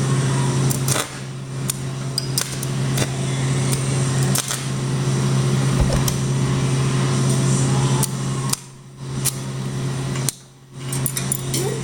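Stick (arc) welding rod crackling and hissing steadily while laying a tack weld on a steel frame, over a steady hum. The arc cuts out briefly twice near the end as the rod sticks to the work.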